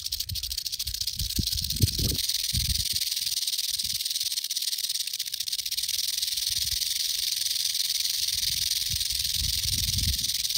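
Eastern diamondback rattlesnake rattling its tail without a break: a steady, high buzz, its defensive warning at a person standing close. A few low thumps sound underneath, the loudest about two seconds in.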